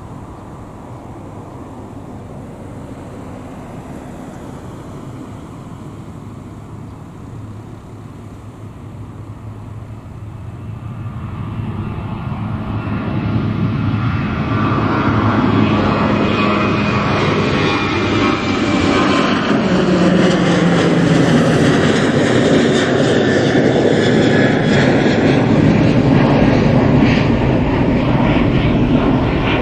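Boeing 737-800 jet airliner's two CFM56-7B turbofan engines at takeoff power. A distant rumble grows steadily louder from about ten seconds in as the jet climbs out, then stays loud, with a whine whose tones slide in pitch as it passes and climbs away.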